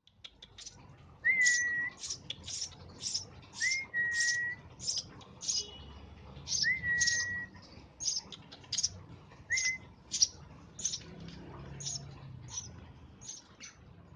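Tame Eurasian tree sparrow chirping repeatedly, short sharp chirps about one and a half a second. Four times in the first ten seconds a person whistles a short, level note alongside it.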